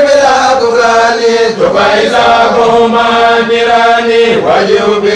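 Men's voices chanting khassida (Mouride religious poems in Arabic) together, in long held notes that slide to a new pitch about a second and a half in and again near the end.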